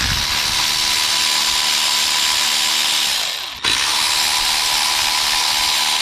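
Cordless electric ratchet running a 10 mm nut off the alternator's main power feed stud: a steady motor whine in two long runs, with a short break about three and a half seconds in and the pitch sliding down as each run winds down.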